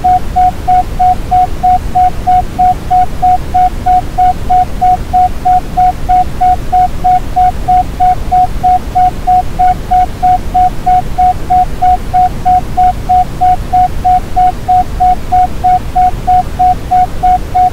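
Isochronic tone: one steady mid-pitched tone pulsing on and off about three times a second (the Pi rate, 3.14 pulses a second), over steady Brownian noise with a deep, rumbling hiss.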